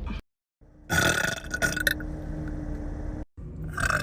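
A young woman burping: one long burp starting about a second in and lasting about a second.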